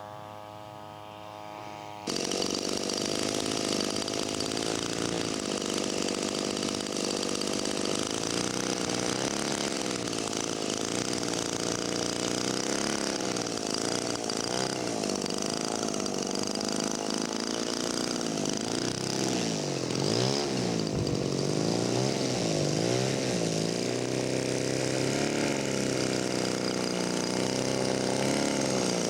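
Single-engine model airplane's engine running in flight, its pitch rising and falling as the plane passes back and forth. About two seconds in, the sound jumps abruptly louder.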